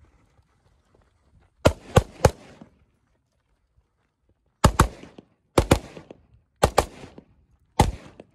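Carbine shots fired in rapid strings at match targets: a quick run of three cracks, then four more groups, mostly doubles, about a second apart, each crack trailing off briefly.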